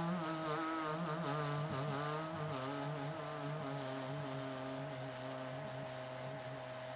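A man's long, low moan held without a break, wavering in pitch, sinking a little and fading slightly toward the end.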